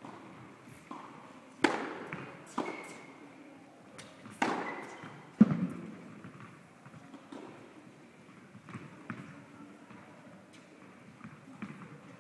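Tennis ball struck by rackets and bouncing on an indoor court. Four sharp hits echo through the large hall in the first half, the fourth the loudest. Fainter knocks follow.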